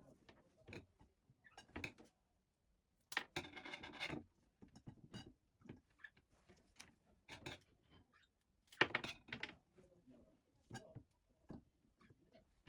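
Quiet household handling noises: scattered light taps and clicks, a rubbing or scraping sound about three seconds in that lasts about a second, and a louder short clatter near nine seconds.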